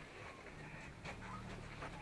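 Herd of Asian elephants walking past close by: faint steps and rustling, with birds chirping. A low steady hum comes in about halfway through.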